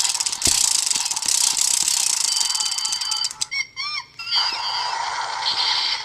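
Shinkenmaru toy sword's disc spun fast by hand: rapid clicking together with the toy's electronic spinning sound. About three and a half seconds in the clicking stops and the toy plays a short electronic animal cry.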